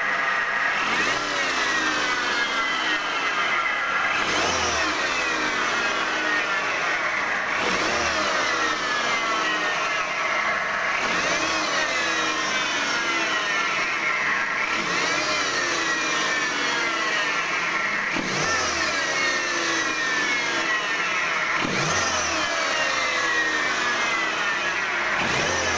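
Peugeot engine blipped and let fall back about eight times, roughly every three and a half seconds, its pitch rising sharply and then sinking each time. The revs are being used to find an unexplained abnormal noise from around the engine.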